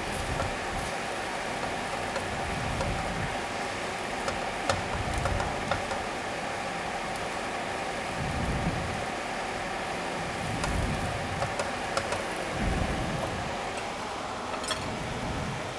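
Shrimp frying in a pan on a gas stove, with a steady sizzle and a spatula clicking and scraping against the pan now and then, over the steady hum of a kitchen range hood fan.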